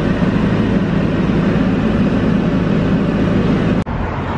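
Steady road and engine noise inside a moving car, a loud, even low rumble. Just under four seconds in it cuts off abruptly at an edit, and a slightly quieter rumble follows.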